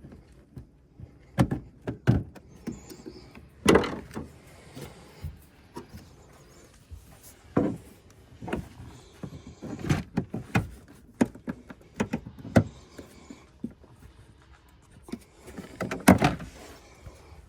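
Plastic car interior trim panel being worked loose by hand: irregular knocks, clicks and rattles as clips pop and the panel knocks against the body, with a loud knock about 4 s in and a cluster of knocks near the end.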